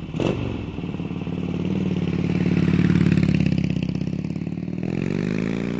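Harley-Davidson V-twin motorcycle engine running with a fast pulsing beat. It grows louder to a peak about three seconds in and eases off, then revs up near the end.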